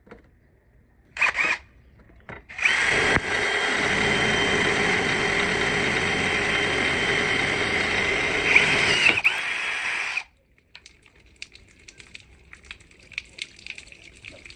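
A small electric motor, like a power tool's, runs steadily for about seven seconds, wavers in pitch shortly before it cuts off abruptly. A short burst comes a second or so before it starts, and faint crackling follows.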